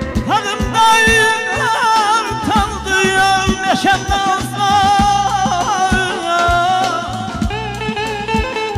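Azerbaijani mugham singing with quick trilled, wavering ornaments, coming in about half a second in, over electric guitar and a drum kit keeping a steady beat.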